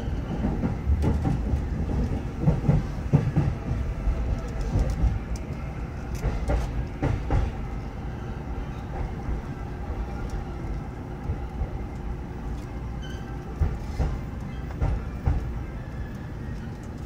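Running noise inside a Ueno-Tokyo Line commuter train: a steady rumble with sharp wheel clacks over rail joints and points. It is loudest in the first few seconds and eases off after.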